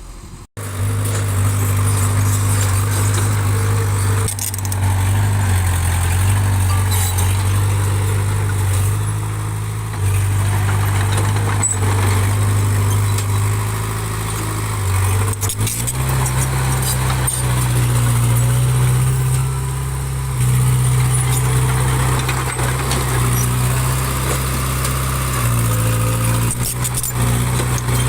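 Diesel engine of a small bulldozer running under load while it pushes soil, its engine speed stepping up about halfway through, with a few short knocks.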